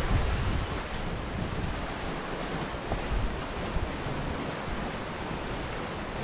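Sea surf washing against a rocky lava-rock shoreline below a cliff, a steady rushing wash, with wind buffeting the microphone, heaviest near the start.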